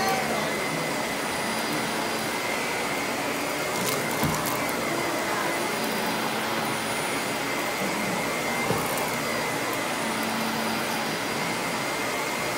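Vacuum cleaner running steadily with a high whine, with a couple of brief clicks as it goes over the floor.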